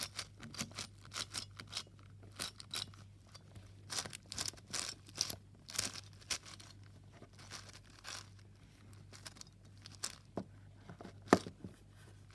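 YJ YuFu 7x7 speed cube being turned by hand, its plastic layers giving an irregular run of quick clicks and clacks, with one sharper clack about eleven seconds in.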